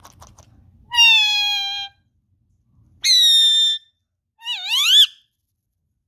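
Indian ringneck parakeet giving three loud, whistly calls: a drawn-out call about a second in that sags slightly in pitch, a shorter high call about three seconds in, and a wavering call that rises near the end.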